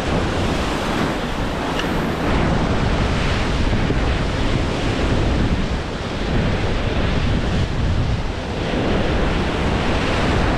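Ocean waves breaking against shore rocks and surging back as whitewash, swelling and easing every few seconds, with wind rumbling on the microphone.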